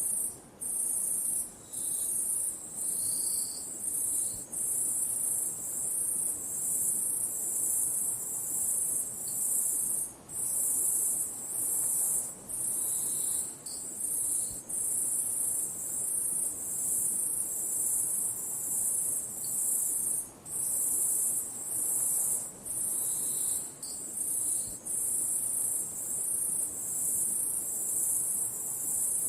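Insects chirping: a high, rasping trill broken into pulses at about one a second, running on without change.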